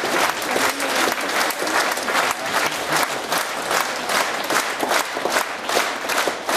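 Concert hall audience applauding, many hands clapping steadily.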